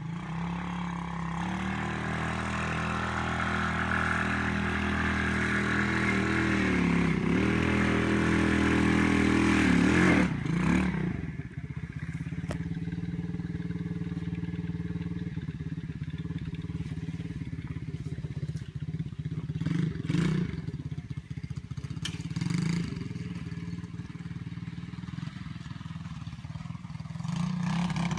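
Small dirt bike's engine running as it is ridden, its pitch rising and dipping with the throttle. It grows louder to a peak about ten seconds in, then settles lower and steadier, with short revs around twenty seconds and again near the end.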